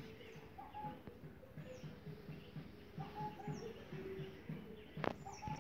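Faint birds calling: short chirps repeated every second or so, with a few thin, high falling notes. A single sharp click about five seconds in.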